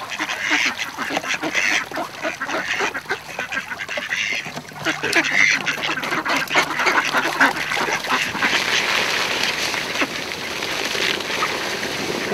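A large flock of tame mallard ducks quacking and chattering continuously, many birds calling over one another.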